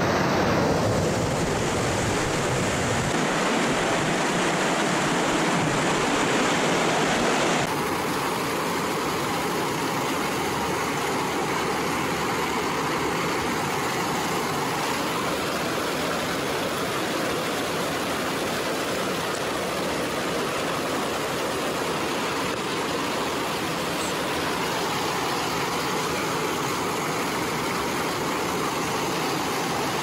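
Mountain creek rushing and churning over boulders in whitewater rapids: a steady, loud rush of water that shifts slightly in tone about eight seconds in.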